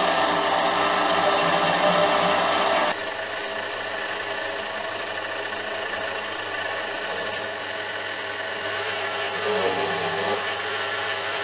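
Mini lathe running with a constant motor hum as a twist drill cuts into spinning aluminium, chips curling off. About three seconds in it gives way to a quieter, steady sound of a turning tool cutting the aluminium.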